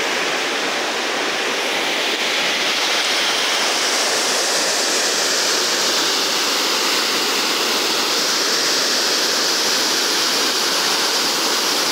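River water rushing over rocky falls and cascades, a steady, unbroken rush of white water.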